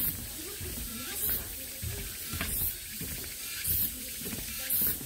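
Slow footsteps along the walkway, a step with a short scuff about every second and a bit, over a steady outdoor hiss.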